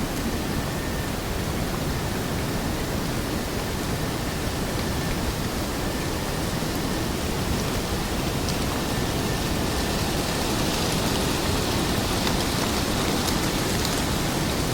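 Forest ambience: an even, steady wash of rushing, water-like noise. About two-thirds of the way in, a brighter hiss with scattered sharp drip-like ticks rises over it, like rain starting to patter.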